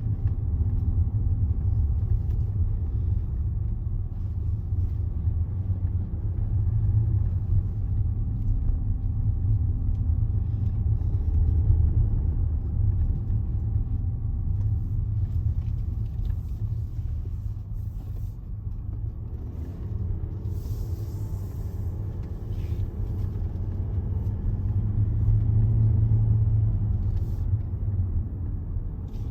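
Low, steady rumble of a Range Rover's engine and tyres heard from inside the cabin while driving, swelling and easing a little with the road, with a short burst of hiss about twenty seconds in.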